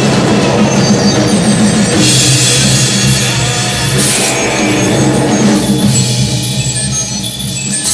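Live noise music: a drum kit played over a dense wall of electronic noise with many held tones from pedals and electronics, thinning out a little near the end.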